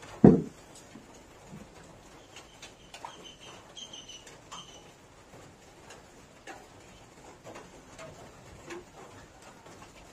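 Eating by hand: fingers mixing rice on a steel plate and chewing, heard as scattered small clicks and ticks. A short, loud, low thud comes just after the start. Faint high chirps come a few seconds in.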